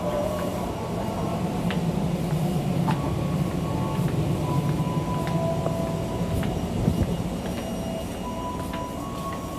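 Inside a KRL Commuterline electric train car standing at the platform with its doors open: a steady low hum, with faint whining tones that shift in pitch and a few light clicks.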